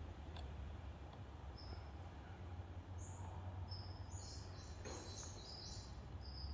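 Faint, short, high bird chirps repeating from about a second and a half in, over a steady low hum, with a couple of soft clicks.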